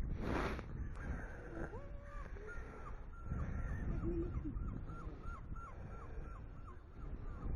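A bird calling in a rapid series of short, repeated calls, about three a second, starting about two and a half seconds in, over a low outdoor rumble. A brief rustle comes just before the calls.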